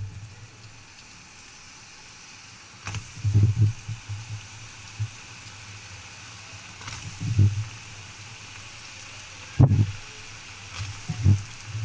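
Battered tofu pieces deep-frying in a saucepan of hot oil: a steady sizzling hiss of bubbling oil. A few low thumps break in, the loudest about ten seconds in.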